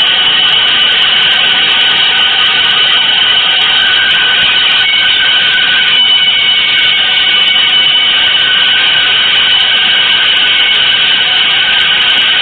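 Experimental noise composition: a loud, unchanging wall of dense hiss with several high sustained tones held inside it, with no beat or melody.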